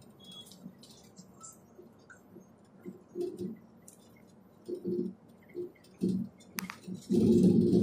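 Cabin of a moving Volvo B11R coach: faint clicks and rattles over a low hum. Short low-pitched sounds come about three and five seconds in, and a louder one starts near the end.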